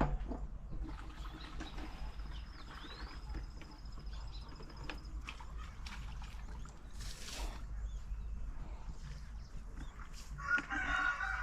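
Chickens on a poultry farm, with faint scattered sounds through most of it, then a rooster crowing loudly near the end.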